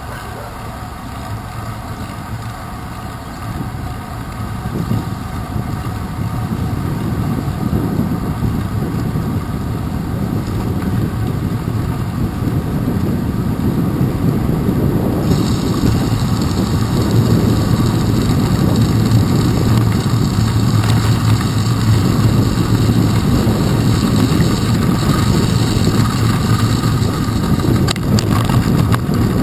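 Wind rushing over a handlebar-mounted camera's microphone, mixed with a bicycle's tyres rolling on wet pavement, growing steadily louder as the bike picks up speed. A higher hiss joins about halfway through.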